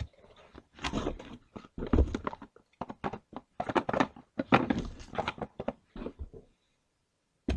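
Car parts and their packaging being handled: irregular crinkling and clicking that stops about six and a half seconds in, with one more click at the very end.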